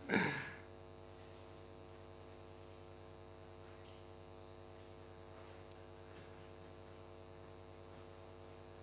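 Steady electrical mains hum and buzz, a fixed chord of even tones, from the hall's sound system. A single short spoken word comes right at the start.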